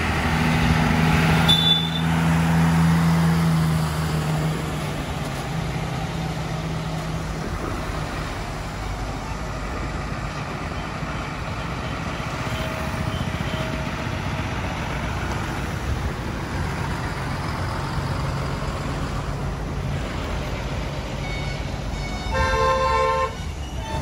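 Heavy diesel trucks passing in a slow convoy, engines running with a low hum that is strongest in the first few seconds, over steady road traffic noise. Near the end a vehicle horn sounds once, for under a second.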